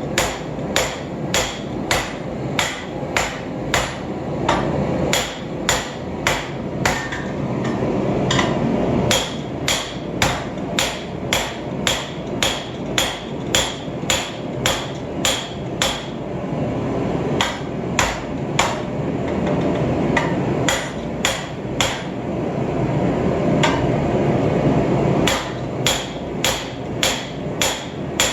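Hand hammer striking hot Damascus steel on the end of a 1-inch sucker rod used as an anvil, drawing the billet down: steady, ringing blows about two a second, with two brief pauses. A steady rushing noise runs underneath.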